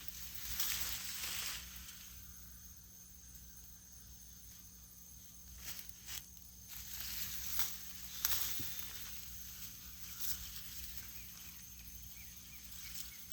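Soil and sweet potato vines rustling and crunching as sweet potatoes are pulled up and dug out by hand, with a few sharp clicks in between.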